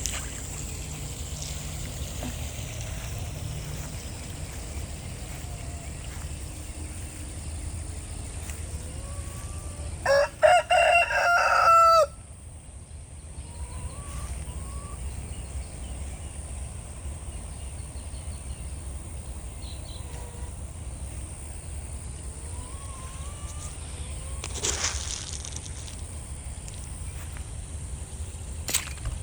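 A rooster crows once, loudly, for about two seconds around ten seconds in. Faint short bird calls come and go over a steady low rumble the rest of the time.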